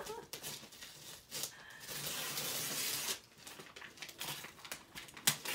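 Wrapping paper being picked at and torn from a gift box: short scattered rips, with a longer tear about two seconds in that lasts about a second.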